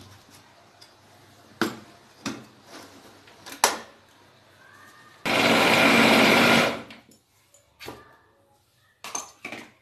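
Electric mixer grinder running in a short burst of about a second and a half, blending maida, mawa and milk into malpua batter in its steel jar. Before it come a few knocks of the steel jar and lid being fitted and set on the base.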